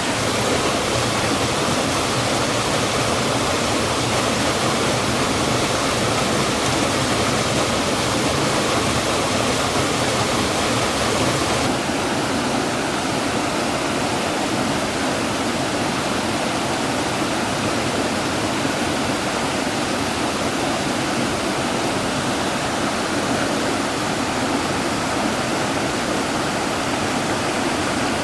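Steady rush of water over a waterfall on a mountain stream, with the high hiss easing slightly about twelve seconds in.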